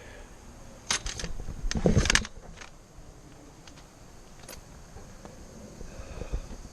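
Metal camp chair and fishing gear being moved and set down: a short clatter of knocks and rattles about a second in and a louder one around two seconds in.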